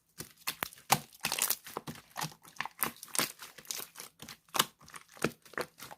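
Hands squeezing and kneading a large batch of slime, giving quick, irregular crackling and popping clicks.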